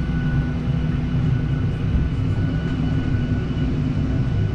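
Boeing 737-800's CFM56-7B jet engines running steadily: a low rumble with a thin, steady whine on top.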